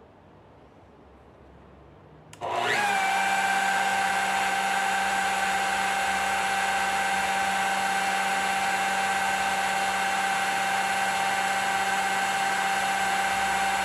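Spindle motor of a homemade manual CNC copier switched on about two seconds in: a rising whine as it spins up, then a steady high-pitched whine at full speed.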